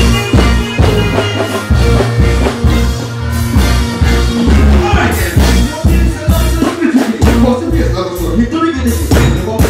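Live music played loud through a stage sound system: a heavy bass line and a steady drum beat, with a voice on the microphone at times.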